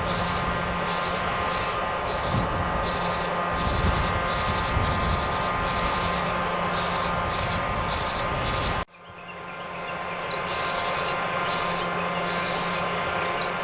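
Japanese tit calling over and over in short rattling bursts, about one every 0.7 s, like a rapid-fire game sound effect or machine gun. A couple of falling high notes come near the end. A steady hum runs underneath, and about two-thirds of the way through all sound drops out abruptly and fades back in.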